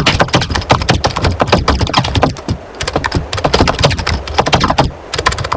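Dense, rapid, irregular clicking and clattering, many clicks a second, easing off briefly twice.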